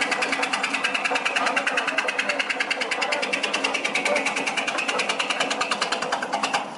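Disc-type herb cutter (SCP-9003) running and chopping oriental bittersweet vines into slices, a rapid, evenly spaced clatter of blade strokes over the machine's running hum. The chopping drops off near the end.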